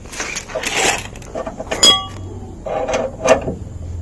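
Metal clinking and clattering from a car's jack and its handle as the jack is wound down. The loudest is a sharp ringing clink just under two seconds in.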